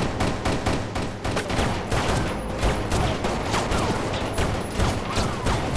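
Movie gunfight: a long, rapid, irregular string of gunshots, with shots overlapping one another.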